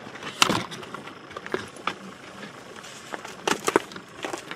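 Ice-fishing rod and reel being handled as a hooked fish is reeled up through the hole: a few scattered, irregular light clicks and rustles over a faint steady hiss.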